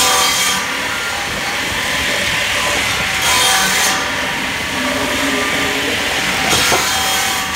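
Firewood cutting machine running steadily while its rotating disc cuts logs into short pieces. There are three brief, loud, hissing cuts about three seconds apart.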